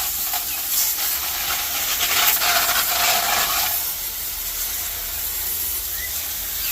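Water spraying or running, a steady hiss that grows louder for a second or two midway.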